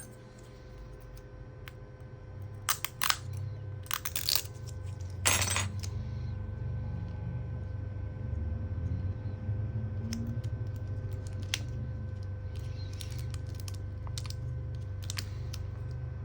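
Sharp clicks and knocks of small tools and laptop parts being handled on a work surface, a cluster of them a few seconds in with the loudest at about five seconds, then a few fainter ticks. A low steady hum sets in under them and carries on.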